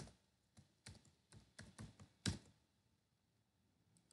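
Typing a password on a computer keyboard: about nine quick keystrokes in a little over two seconds, the last one the loudest, then the typing stops.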